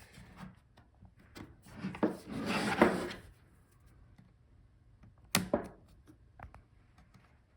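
Laptop bottom case being pried off the palmrest with a pry tool: small clicks and a scraping rub along the seam, then two sharp snaps a little after five seconds as the case's clips let go.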